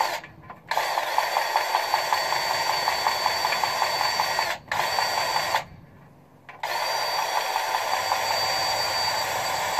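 Cordless power grease gun running in three stretches, a steady motor whine with a fast ticking pump pulse, as it forces grease into a wedge brake adjuster on a military 5-ton truck's rear axle. It stops briefly about halfway through, then for about a second, then runs again.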